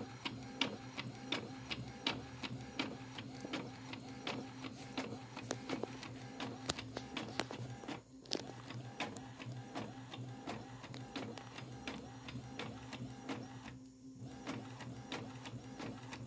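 Epson L360 inkjet all-in-one printing a colour copy: its print head shuttles back and forth with a steady whir and regular clicks about three a second, stopping briefly twice.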